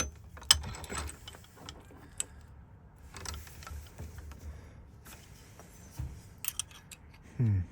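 Small metal clicks and clinks of keys and Ford lock-cylinder parts being handled and worked during rekeying, with a short, louder sound falling in pitch near the end.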